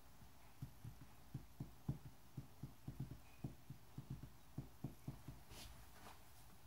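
A run of soft, dull thumps, about three to four a second at an uneven pace, then a short rustle of a hand on sketchbook paper near the end.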